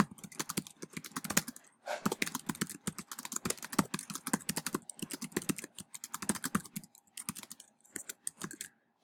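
Typing on a computer keyboard: fast runs of key clicks, with a short pause about two seconds in and sparser keystrokes near the end.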